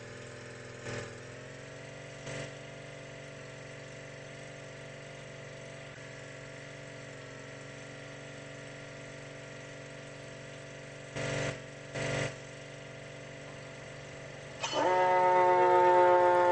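Fire engine running at a steady idle, with a few short bursts of noise along the way. About two seconds before the end, its siren starts up loudly, sweeping up and then holding a steady wail.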